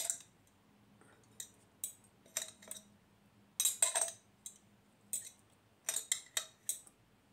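A spoon knocking and scraping against the inside of a glass jar as sticky pastry is worked out into a bowl. It comes as scattered short, light clinks, with a cluster about halfway through and another near the end.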